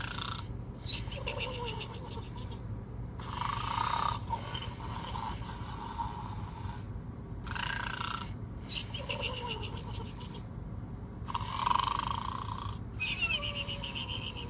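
Talking plush pig toy's electronic snoring sound: rasping snore breaths repeating about every four seconds, some ending in a short falling whistle, over a steady low hum.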